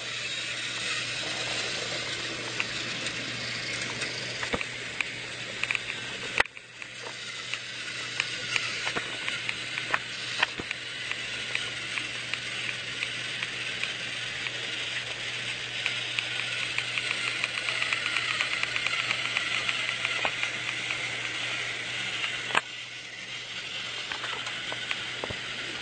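Motorised toy Thomas the Tank Engine train running: the steady whir of its small motor and gears, with a scatter of light clicks. A sharp click comes about six seconds in and another about twenty-three seconds in, each followed by a brief dip in the sound.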